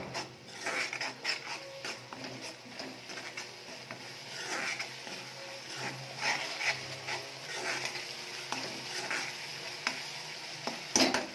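Steel spoon stirring and scraping a thick masala around a metal kadhai, in repeated short strokes with clinks against the pan, over a steady sizzle of frying oil, and a sharp clack near the end. The masala is fried through, with the oil starting to separate.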